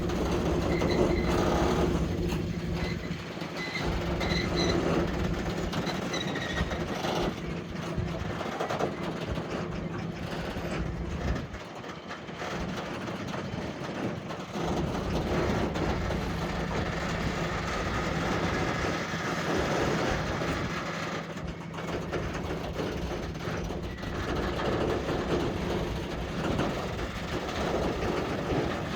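SM42 diesel shunting locomotive moving a rake of Eas open coal wagons: its diesel engine runs with a steady low hum under the rumble and clatter of wagon wheels on the track. A few short high-pitched squeaks come in the first several seconds.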